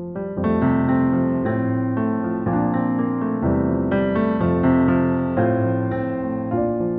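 Background music: piano or electric piano playing a chord progression, its notes struck afresh about every half second.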